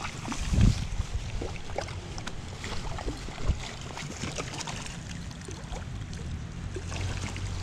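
Wind rumbling on the microphone, with scattered light clicks and knocks.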